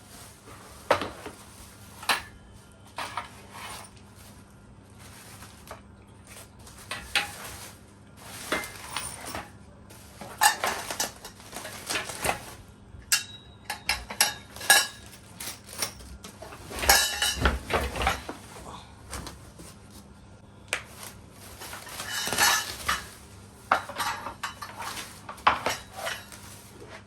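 Hard objects, mostly metal, being handled: irregular clinks, clatters and knocks in scattered clusters, over a faint steady hum.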